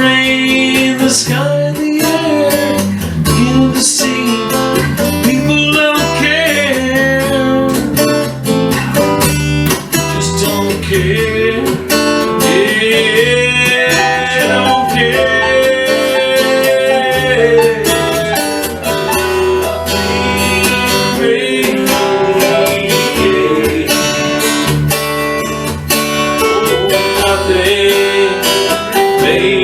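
Guitar music with steady strumming, an instrumental passage without words.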